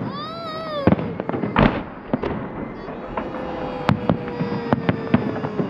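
Fireworks salute bursting overhead: a string of sharp bangs and crackles at irregular intervals, with voices rising over it at the start and in the second half.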